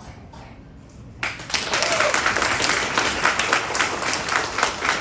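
An audience bursts into applause about a second in, after a speech ends, with many hands clapping.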